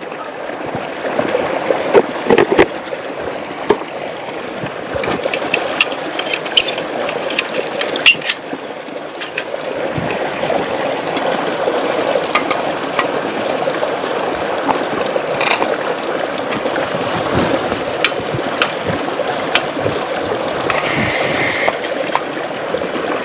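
River water flowing and splashing, with scattered sharp clicks and knocks. Near the end there is a brief high-pitched call of about a second.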